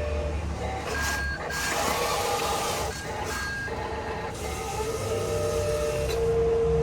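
RC dump truck's electronic sound module playing reversing beeps, a few short high beeps, over a steady synthesized truck-engine drone.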